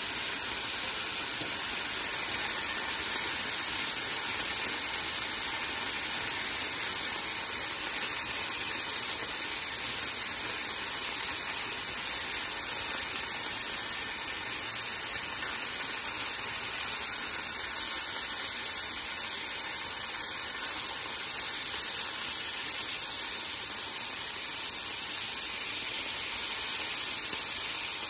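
Bacon strips sizzling steadily in a frying pan, the fat spattering as they fry.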